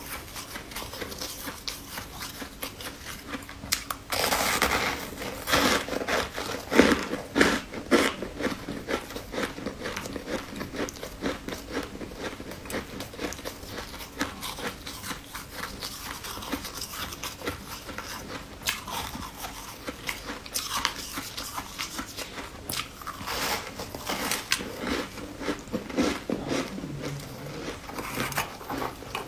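Close-up biting and chewing of a round white sweet: crisp crunches and crackly clicks, densest about four seconds in and again near the end.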